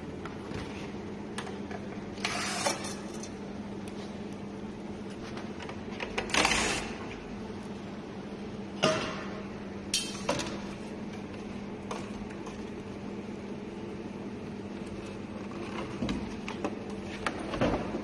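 A few short scraping bursts and clicks from parts being handled, the loudest about six and a half seconds in, over a steady low hum.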